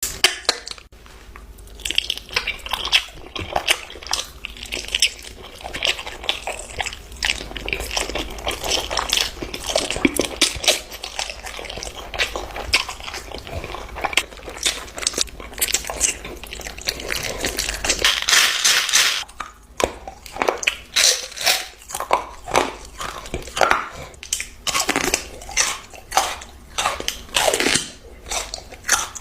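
Close-up eating sounds: crunchy food being bitten and chewed, a long run of sharp, irregular crunches.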